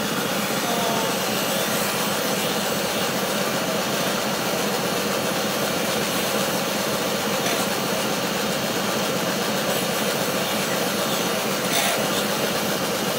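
Columbia bench grinder running steadily while a bent steel-wire roasting-stick holder is held against its spinning wheel to clean off black grime, with a brief louder scrape near the end.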